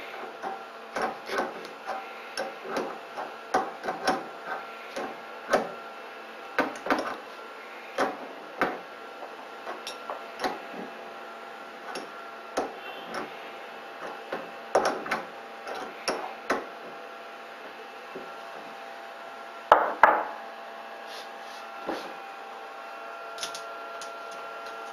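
Irregular metal clicks, taps and knocks from a small wrench and screws being worked while a filament feeder's stepper motor and metal drive block are fastened to a 3D printer's metal frame, with a louder double knock about twenty seconds in. A steady electrical hum runs underneath.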